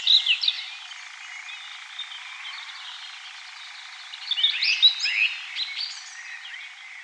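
Several wild songbirds singing: quick chirps and trills at the start, fading to a faint background, then a fresh burst of song from about four seconds in.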